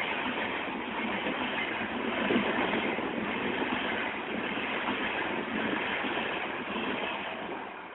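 A passing train's coaches rolling along the track: a steady running noise with no horn, fading toward the end.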